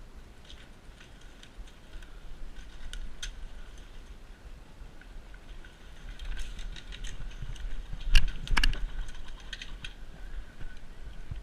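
Scattered light clicks and rattles of airsoft play, with a quick cluster of sharper snaps about eight seconds in, over a low rumble.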